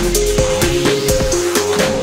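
Fast electronic trance dance music: a steady driving beat with a repeating synth melody.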